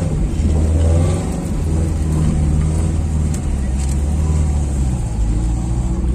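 Volkswagen Saveiro pickup driving along with its engine running, a deep steady hum heard from inside the cab.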